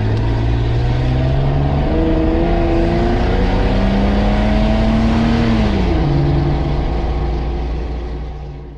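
Off-road 4x4's engine pulling the vehicle along, heard from inside the cab with road and wind noise. The engine note climbs, then drops about six seconds in as it changes gear, and the sound fades near the end.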